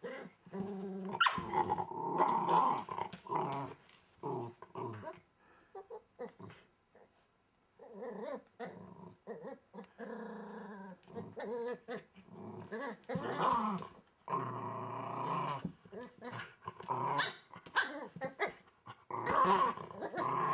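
Welsh Terrier puppy growling in play, in repeated bouts with a short lull partway through.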